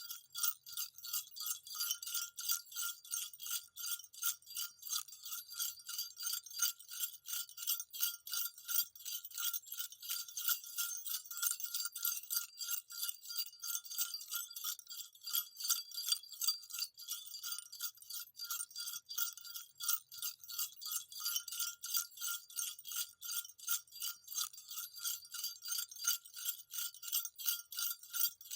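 Small jingle bells shaken in a steady rhythm, about three to four shakes a second, with a bright, tinkling jingle that goes on without a break.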